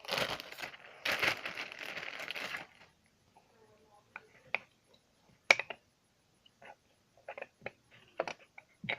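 Handling noise: a rustling, crinkling stretch for the first two and a half seconds or so, then scattered small clicks and ticks, with one sharp click about five and a half seconds in.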